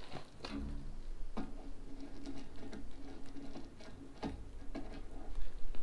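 A few sharp clicks and taps of a clamp and aluminum square tubing being handled, over a faint steady hum.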